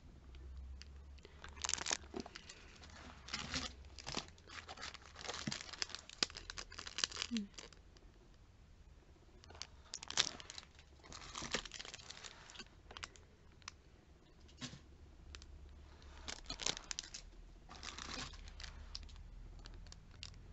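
Thin clear plastic bag around a cosmetic compact crinkling and rustling in irregular bursts as it is handled.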